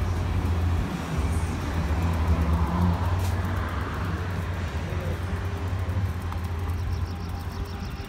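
Street traffic: a steady low engine rumble of motor vehicles, easing off near the end.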